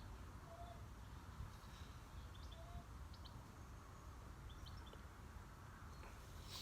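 Faint birdsong: short high chirps scattered through, with a few brief lower whistled notes, over a low steady background hum.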